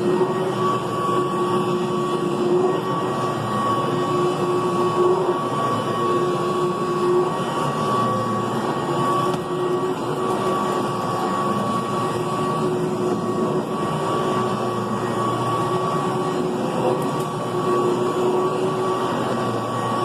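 Upright vacuum cleaner running steadily as it is pushed over carpet: a constant motor and fan drone with a steady whine on top.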